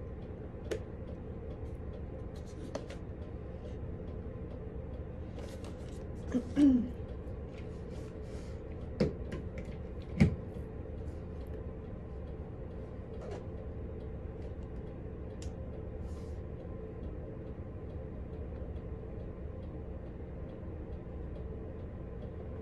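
Low steady room hum with scattered light clicks and a few knocks from a portable DVD player and its charger cable being handled and plugged into a wall outlet; the loudest knock comes about ten seconds in.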